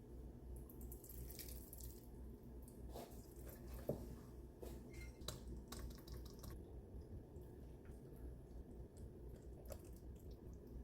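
Faint kitchen-sink sounds: water dripping and light splashing, with scattered small clicks and taps of utensils being handled.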